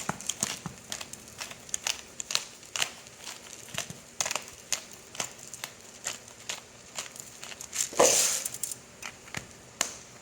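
Black pepper being dispensed over salmon fillets: a run of irregular, sharp, crackling clicks, with a louder rustle about eight seconds in.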